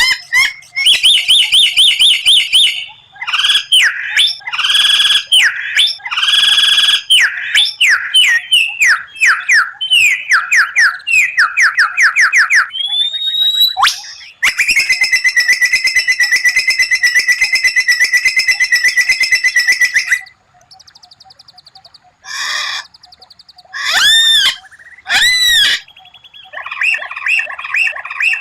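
White-rumped shama (murai batu) singing a loud, varied song of rapid repeated trill phrases ('tembakan'), including one long fast rattling trill lasting about six seconds, then a few arched whistled notes after a brief quieter stretch.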